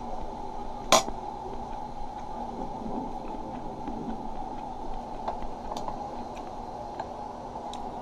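Steady hum of room noise, with one sharp click about a second in and a few faint ticks after it.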